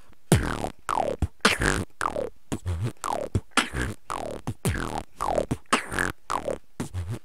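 Live beatboxing into a close microphone: mouth-made kick and snare hits in a steady groove, with a pitched sweep that falls sharply about once a second and short bass hums between the hits.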